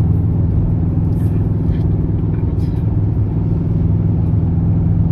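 Steady road and engine rumble inside a car cabin while driving at freeway speed, with a few faint clicks.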